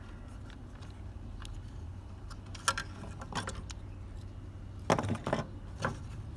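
Small hard parts clicking and clattering as they are handled, in a few short clusters, over a steady low hum.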